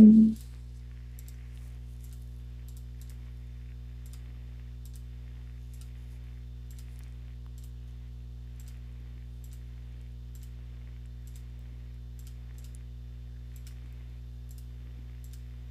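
Faint computer mouse clicks, scattered irregularly, over a steady low electrical-type hum. A brief pitched voice sound at the very start is the loudest thing.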